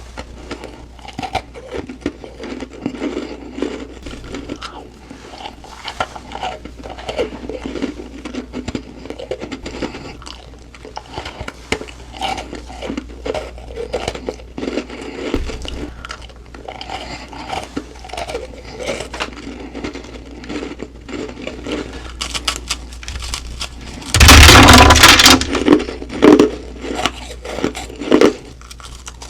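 Close-miked chewing and crunching of humidifier frost, soft irregular crunches throughout. About twenty-four seconds in comes a much louder crunch lasting over a second, followed by two shorter loud ones.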